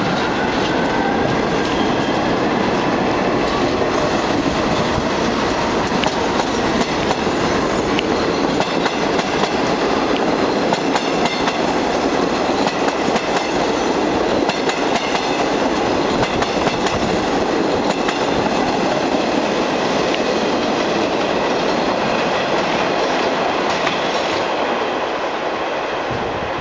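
R40 slant-front subway train pulling out of a station: a whine that rises in pitch over the first couple of seconds as it picks up speed, then a steady rumble with clattering clicks of the wheels on the rails as the cars roll past.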